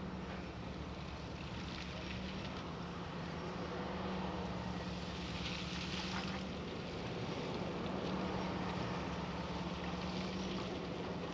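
Monighan 9W walking dragline at work, dragging its bucket through loose rock: a steady machinery drone with a constant hum and a fast low pulsing, and a rougher hiss rising briefly a few times.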